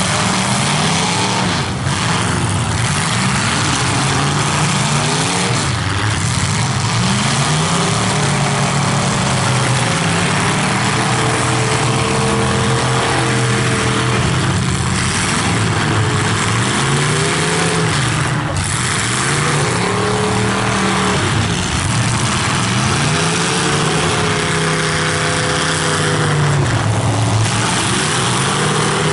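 Several demolition derby cars' engines revving up and down over one another as the cars shove and ram, with a few sharp crashes of car bodies colliding.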